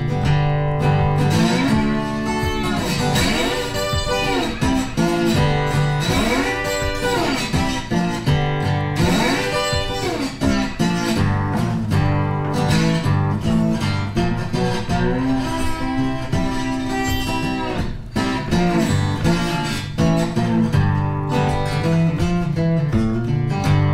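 Background music led by guitar. For several seconds near the start, notes swoop up and down in pitch.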